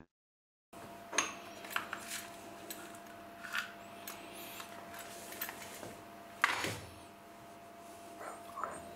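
Steel parallel bars being handled and set into a milling-machine vise: light metal clinks and taps, with one sharper metal knock about six and a half seconds in, over a faint steady hum. The sound starts after a short silence.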